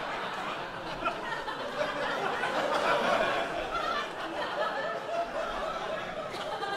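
Live audience laughing at a joke; the laughter carries on for several seconds, then eases off somewhat in the second half.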